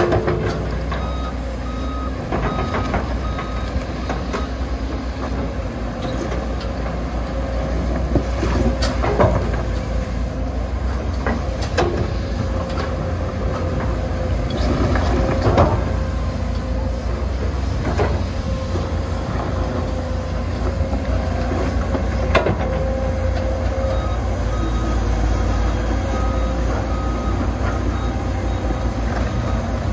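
Komatsu PC200 hydraulic excavator's diesel engine running steadily while it digs, with occasional sharp clanks from the machine at work. A reversing alarm beeps intermittently, early on and again near the end.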